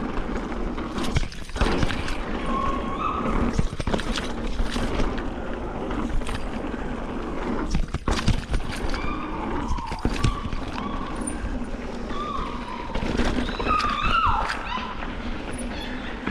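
Mountain bike descending a dirt downhill trail: a steady rumble of wind and tyres on dirt, broken by frequent sharp rattles and knocks as the bike hits bumps.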